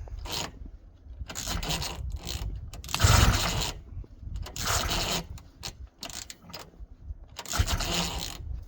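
Recoil pull-starter of a 1971 Ski-Doo Olympic snowmobile being yanked about six times, each pull a short scraping rush as the two-stroke engine cranks over without firing.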